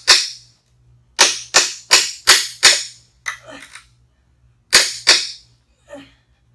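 Hammer blows on a steel pry bar, driving it in under a pallet board to lever it up: a run of five sharp metallic strikes about a third of a second apart, then two more near the end, with a few fainter knocks between.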